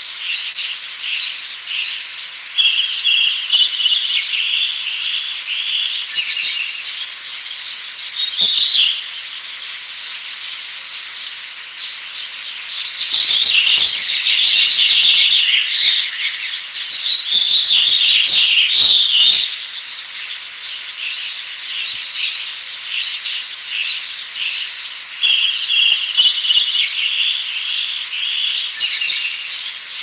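Small songbirds chirping and trilling in a dense, continuous chorus, with a louder stretch of twittering in the middle.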